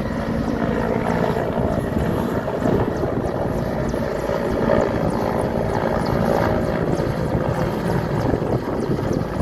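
Military transport helicopter flying past low, its rotor blades beating steadily over the engine noise.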